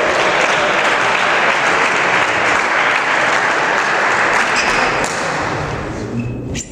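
Audience applauding a point just won, dying away about five seconds in.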